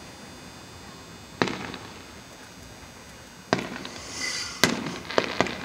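Fireworks going off: sharp bangs about a second and a half in, again at three and a half seconds and loudest near five seconds, then two quick smaller cracks, with a short crackling hiss between the last bangs.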